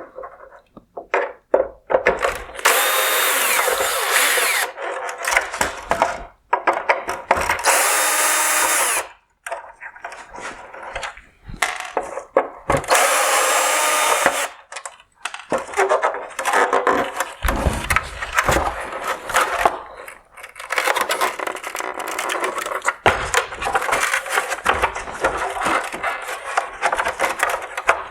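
A power screwdriver running in three short runs of one to two seconds each, backing T10 screws out of a plastic headlight bezel. Between and after the runs come clicks, scrapes and rattles as the parts are handled.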